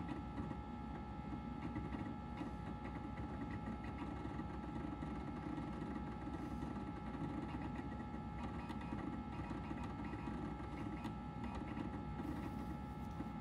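Macintosh SE booting from its internal hard disk: the drive chatters with rapid seek ticks over the steady hum and whine of the fan and spinning drive.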